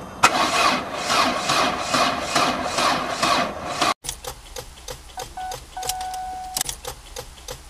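A Vauxhall car engine being cranked by its starter motor, with an even rhythm of about four pulses a second, while failing to start. After a sudden cut there are spaced clicks as an ignition key is turned, with a short beep and a longer steady tone sounding twice.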